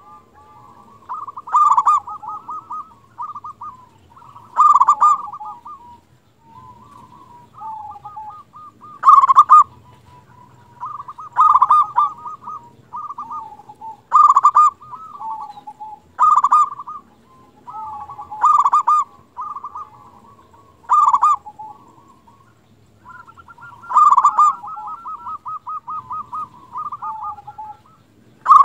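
Zebra dove (perkutut) singing: a rolling, trilled cooing song repeated over and over, with a loud accented phrase about every two to two and a half seconds and quieter rolling notes in between.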